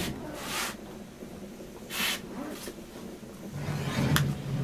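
Handling at an open oven as a cast iron bread pan is taken out with a dish towel: cloth rustling and short hissing bursts, then a sharp knock of the pan on the oven rack near the end, over a low hum.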